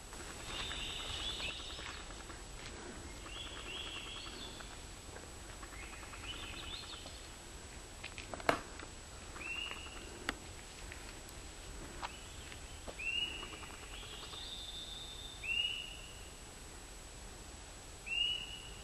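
Forest songbirds singing: short whistled notes repeated every couple of seconds, with rising trilled phrases in the first half. A single sharp click sounds about halfway through.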